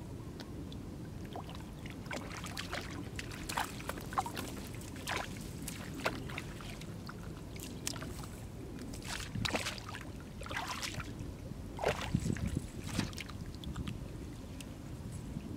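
Shallow muddy water splashing and sloshing irregularly as hands feel through it and a wet cast net is lifted and gathered, with water dripping off the net. A steady low rumble runs underneath.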